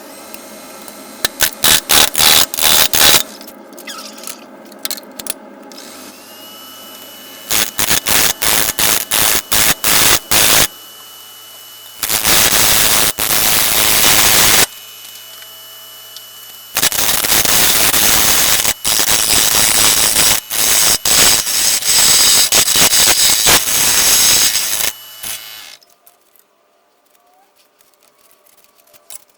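Woodworking power tool running with a steady hum and cutting into a hard maple blank in several long, loud rasping stretches, then stopping about three-quarters of the way through.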